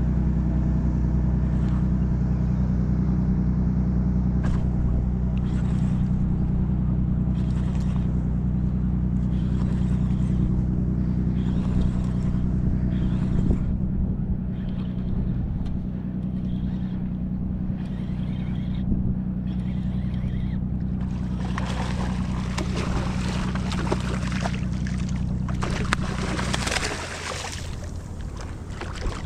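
Boat's outboard motor idling with a steady low hum while a fish is fought on rod and reel. Over the last several seconds water splashes as the hooked fish thrashes at the surface beside the boat, and the motor's hum stops near the end.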